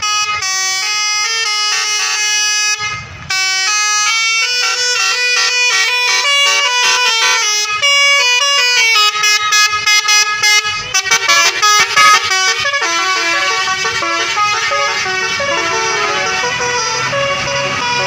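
Bus telolet horn (basuri-type musical horn) playing a tune of stepped notes, with a short break about three seconds in. From about eleven seconds in, several horn tones overlap in a dense, continuous jumble.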